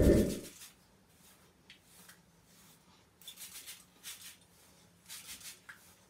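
A loud bump right at the start, then short hissing squirts from a trigger spray bottle misting hair with a water-and-conditioner mix, in a few quick groups about a second apart.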